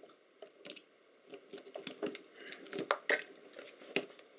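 Small irregular clicks, crackles and scrapes of hands working at a potted electronic module, pulling at its wires and crumbly yellow potting compound, with a few sharper clicks in the second half.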